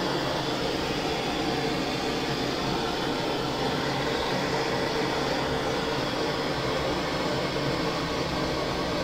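Handheld gas torch burning with a steady hiss, its flame playing on a small steel slag hammer to heat it.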